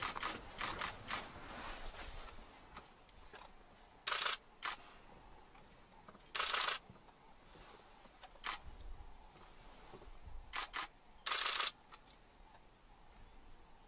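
Camera shutters firing: a quick run of clicks at the start, then several short, separate bursts of rapid shutter clicks, each under half a second.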